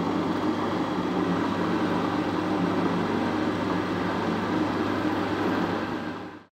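Drill press running steadily, drilling a 4 mm hole down through a metal spigot held in a machine vice: an even motor hum with the noise of the cut. It fades out near the end.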